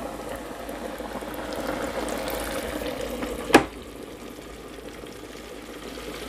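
Hot oil in a Presto electric deep fryer bubbling vigorously around freshly dropped floured quail. About halfway through, the fryer's lid shuts with a sharp clack, and the bubbling goes on a little quieter beneath it.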